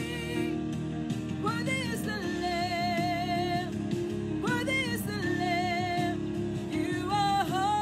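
A woman singing a slow worship song, holding long notes with vibrato, over instrumental accompaniment.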